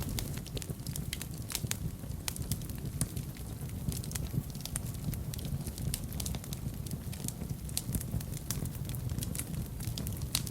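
Wood fire burning in a fireplace: irregular crackles and pops over a steady low rumble of the flames.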